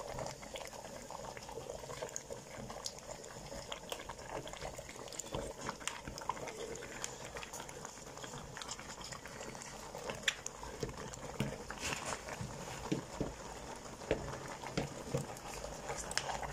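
Thick tomato-and-pepper soup base bubbling at a boil in a pot. Small clicks run through it, with sharper clinks in the second half as a spoon works in the pot.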